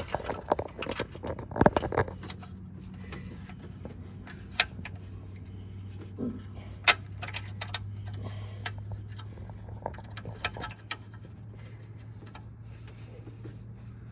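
Irregular metallic clicks and knocks of hand tools and parts being worked loose on a golf cart, over a steady low hum.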